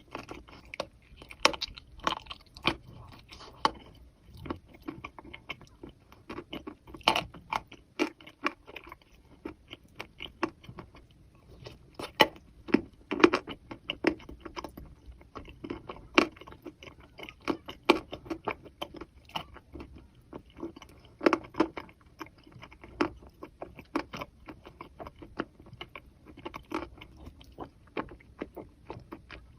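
Close-up crunching and chewing of wet chalk coated in thin clay paste, with sharp irregular crunches from bites and chewing.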